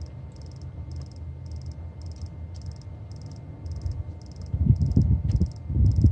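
High-pressure fuel pump regulator on a 2012 VW Tiguan TSI's engine ticking faintly about twice a second, like an insect, with the engine off and the ignition on. Under it a steady low hum, the buzzing the owner is tracing with the key in the first position. Louder low rumbles come in twice near the end.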